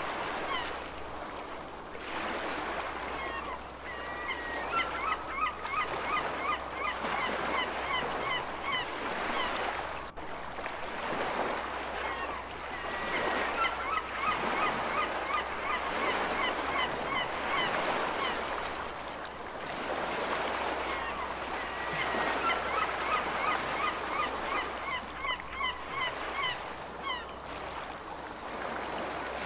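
Gulls calling in runs of short, repeated yelping notes over a steady wash of ocean surf, with a brief dropout about ten seconds in.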